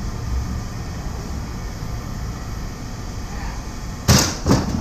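Steady low background rumble, then two loud bangs in quick succession near the end, about half a second apart.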